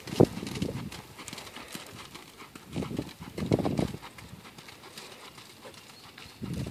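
Hoofbeats of a Quarter Horse gelding moving in deep arena sand under saddle, dull and muffled. A single sharp knock stands out about a quarter of a second in.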